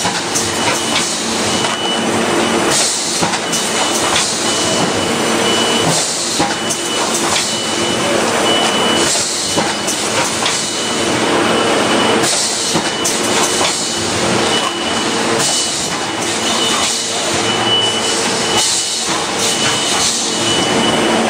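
SP-1220A linear automatic juice cup filling and sealing machine running, a steady mechanical clatter and hum with louder hissing surges recurring every one to three seconds as it cycles.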